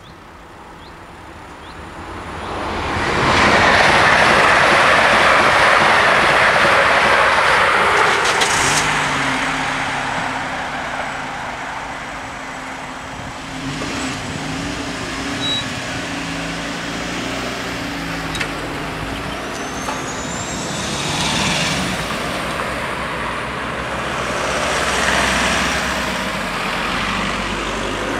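Stadler FLIRT electric multiple unit passing the level crossing: a loud rush of wheels and air that builds about two seconds in and fades after about eight seconds. Then comes a steady low hum as the crossing's barrier booms are raised, and near the end cars drive over the crossing.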